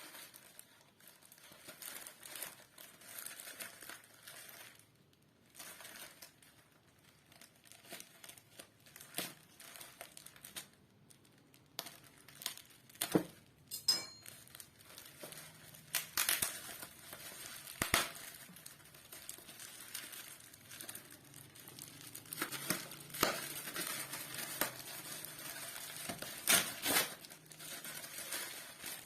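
Packaging being unwrapped by hand: irregular crinkling of wrapping, with a few sharp clicks and knocks.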